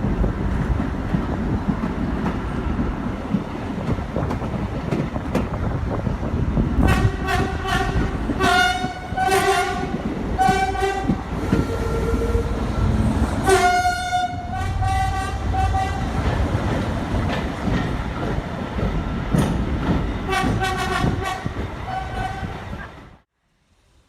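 A train running with a steady low rumble. About seven seconds in, its horn starts sounding a series of blasts, some long and some short, and near the end comes a quicker run of short toots. The sound cuts off abruptly about a second before the end.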